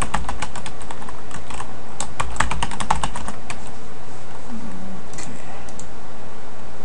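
Typing on a computer keyboard in two quick runs of keystrokes, a password entered and then typed again to confirm it. The first run is at the start and the second about two seconds in, lasting about a second and a half. A few fainter clicks follow about five seconds in.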